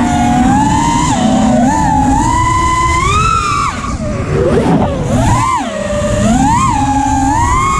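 Electric motors of an FPV drone whining, the pitch swooping up and down with the throttle. Wind noise rushes on the microphone underneath.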